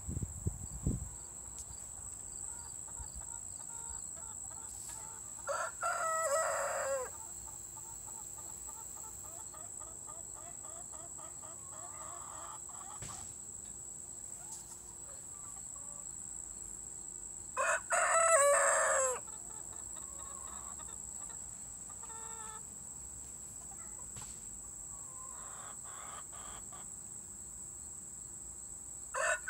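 Young rooster still learning to crow: three short crows about twelve seconds apart, the third just starting near the end. Hens cluck softly between the crows, over a steady high tone.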